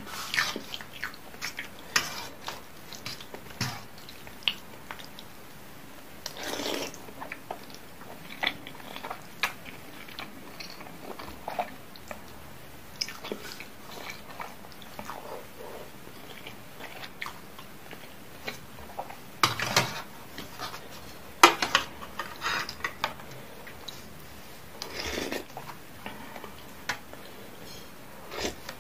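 Someone eating instant noodles in spicy soup: chewing and many short clicks of a spoon and fork against a stainless steel tray, with a few longer, louder slurps of noodles and soup.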